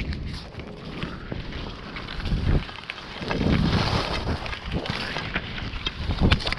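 Wind buffeting the microphone and a padded jacket rubbing against the camera, a steady low rumble with a few scuffs and clicks, loudest about midway.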